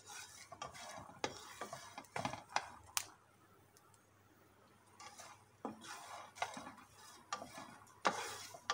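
Wooden spatula stirring and scraping roasting sweet corn kernels around a non-stick frying pan, the kernels clicking against the pan. The stirring pauses for a couple of seconds midway, then resumes.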